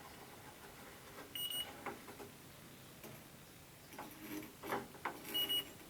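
Fieldpiece DR82 electronic refrigerant leak detector on turbo sensitivity giving two short high beeps about four seconds apart, with faint clicks and knocks of handling in between. It raises no leak alarm: it is not picking up any refrigerant.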